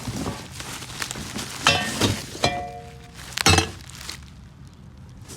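Stainless steel exhaust parts clanking and clinking as they are handled and set down: a few sharp metal knocks, one of which rings briefly.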